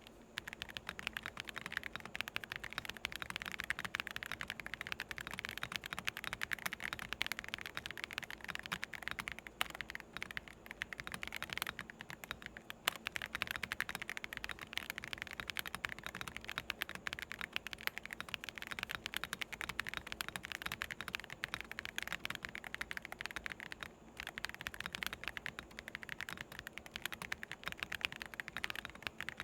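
Continuous fast typing on a Redragon Glintstone Pro (K725LBY) budget mechanical keyboard: a dense, steady stream of light key clacks from low-force switches.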